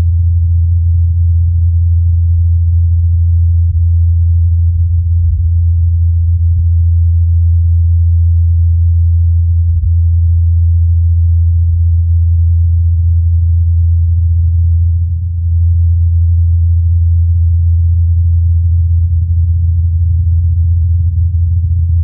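Steady low hum of the Ingenuity Mars helicopter's twin counter-rotating rotors in flight, as picked up by the Perseverance rover's microphone. It is one unchanging low drone with no higher sound, dipping briefly about fifteen seconds in.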